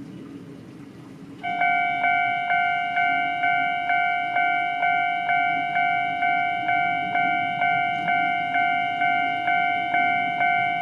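Japanese railway level-crossing warning bell starting up about one and a half seconds in and ringing evenly at about two strikes a second, signalling an approaching train. A low rumble sits underneath.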